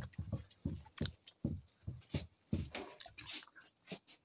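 Wet chewing and lip-smacking close to the microphone as a person eats fried tripe by hand, in short irregular bursts a few times a second.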